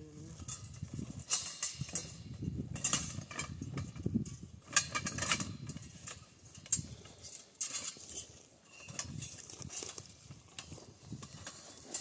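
Metal tent poles clinking and clanking as they are pulled from their bag and fitted together: irregular sharp knocks, busiest in the first half and sparser later.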